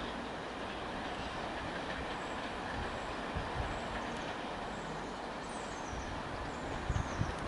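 Distant train running away down the line: a steady rumble of wheels on rail, with a few low thumps about three seconds in and again near the end.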